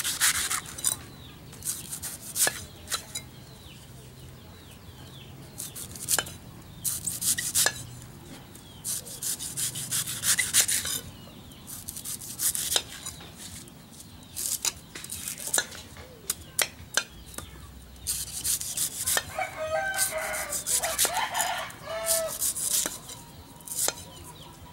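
Large knife shaving and chopping the husk of a young green coconut: irregular bursts of scraping strokes with sharp clicks as the blade bites. A rooster crows about three-quarters of the way through.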